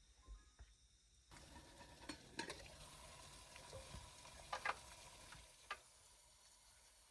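Faint sizzling hiss with scattered light clicks and taps, starting abruptly about a second in.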